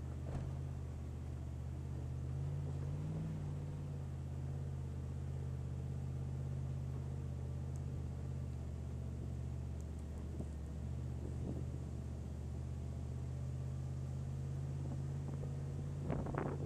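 Vehicle engine running steadily as it crawls up a steep, rocky dirt trail, the revs rising briefly about three seconds in. Wind starts buffeting the microphone near the end.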